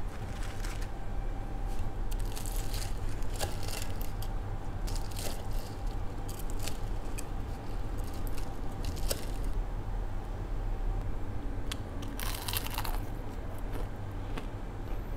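Knife cutting through the crisp fried batter of chicken wings on a wooden board, giving scattered crackling crunches. About twelve seconds in comes a louder, denser crunch as a piece is bitten into.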